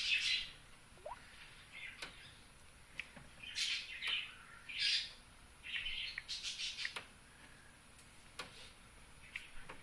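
Birds chirping and calling in short bursts, busiest at the start and through the middle, with a few faint sharp ticks between the calls.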